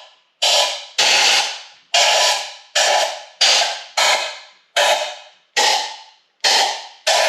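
Compressed-air blow gun hissing in short blasts, about one a second, blowing out the oil and coolant passages and bolt holes of a Subaru EJ25 cylinder head.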